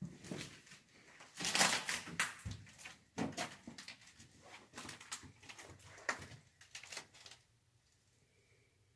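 A run of irregular scrapes and knocks, loudest about one and a half to two seconds in, stopping about seven and a half seconds in.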